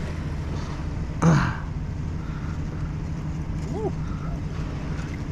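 Steady low hum of distant traffic, with a short throat-clearing grunt from one of the anglers about a second in.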